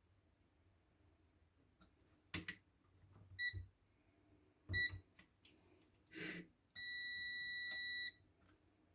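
Multimeter continuity tester beeping as the probes touch the kettle's parts: two brief beeps about a second apart, then one steady beep of the same pitch for just over a second, the sign of a closed, intact circuit. Light handling knocks come in between.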